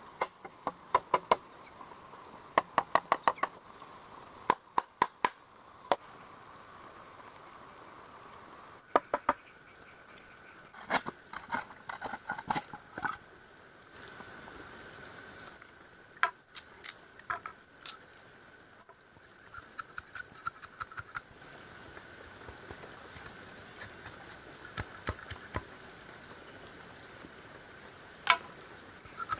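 Bamboo being worked with hand tools: groups of sharp knocks and taps, several quick strokes at a time with pauses between, each with a short hollow ring.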